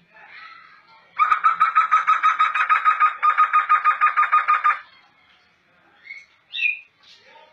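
Black laughingthrush singing: a loud, rapid series of repeated pitched notes, about seven a second, lasting over three seconds with a brief break midway, followed by a few softer scattered calls near the end.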